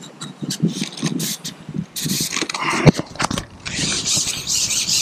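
Carbon match-fishing pole being shipped out over a pole roller: uneven rattling and scraping of the sections running across the roller and through the hands, with a sharp knock about three seconds in.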